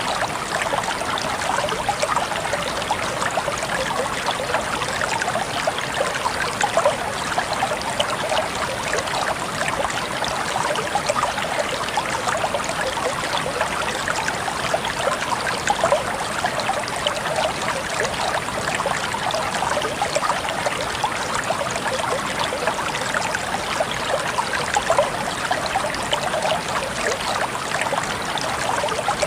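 River water running steadily, with many small trickles and splashes.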